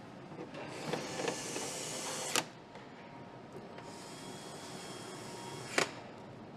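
Cordless drill-driver running in two short runs of about two seconds, each ending in a sharp click, over the steady hum of the assembly hall.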